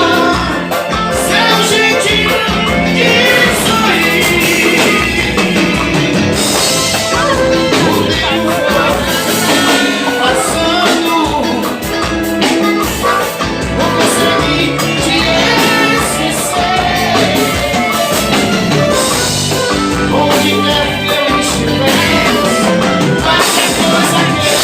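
Live band music with singing: a song played continuously and loud, without a break.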